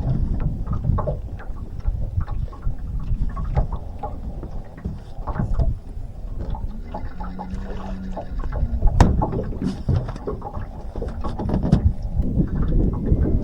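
Irregular knocks, clicks and rattles of fishing gear being handled in a boat, over a steady low rumble. A brief low hum sounds about seven seconds in.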